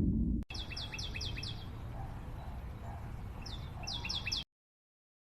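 A loud low rumble that stops abruptly, then a bird's quick, high chirps: a run of about six short falling notes, a pause, and a second run of about five, over a low background hum.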